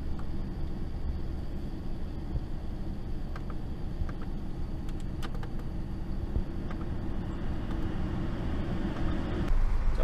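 Steady low rumble of a car heard from inside the cabin, with a few faint clicks around the middle.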